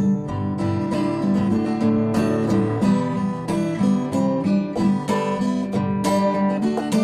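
Acoustic guitar strummed in a steady rhythm, playing an instrumental introduction with no singing.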